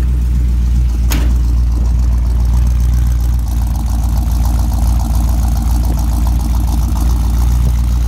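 1947 Pontiac Torpedo's engine idling steadily shortly after a cold start, with a deep, even exhaust note. A single sharp click comes about a second in.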